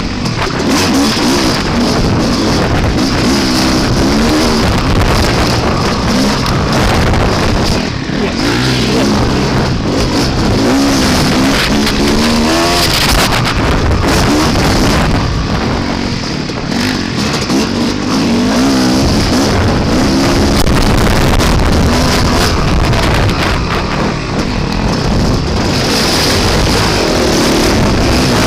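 Dirt bike engine revving up and down again and again while riding, under heavy wind noise on the camera's microphone.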